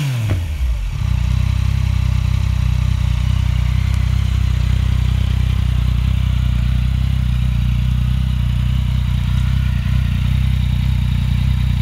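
2015 Yamaha FZ-09's 847cc inline-three running through a full Yoshimura exhaust. The revs drop back from a blip in the first second, then it idles steadily.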